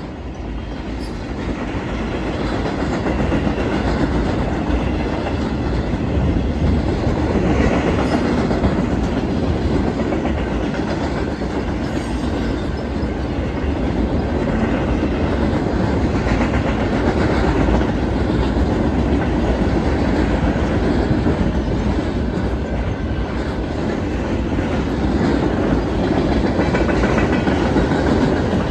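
Freight train flatcars rolling past at a grade crossing: a steady rumble of wheels with clickety-clack over the rail joints, growing louder over the first few seconds and then holding steady.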